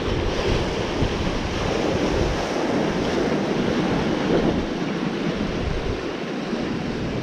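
Ocean surf washing and foaming over shoreline rocks, a steady rushing wash, with wind buffeting the microphone.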